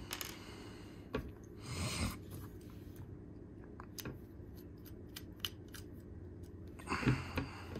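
Small-tool handling: a screwdriver bit seating in and turning out a folding knife's pivot screw, giving light scattered metallic clicks, with a few soft rustles, the loudest near the end.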